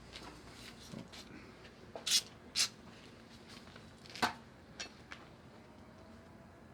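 Handling of a Simson moped's throttle grip parts: a few short, sharp clicks and knocks of metal and plastic parts, the loudest two close together about two seconds in and another a little past four seconds.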